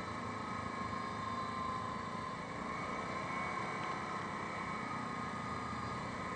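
Yamaha Grizzly 550 ATV's single-cylinder four-stroke engine running steadily while riding along at road speed, with a steady high whine over the engine and road noise.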